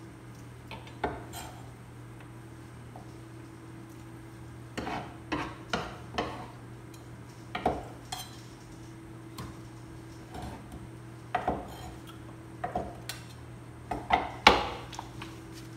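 A metal utensil clinking and knocking against a cooking pot as bakso broth is stirred, in irregular strikes that grow busier in the second half, the loudest one near the end. A steady low hum runs underneath.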